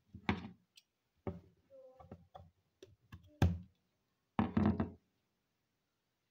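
A series of knocks and thuds from a hot glue gun and craft materials being handled on a wooden table, the loudest about three and a half seconds in, followed by a half-second clatter just before five seconds.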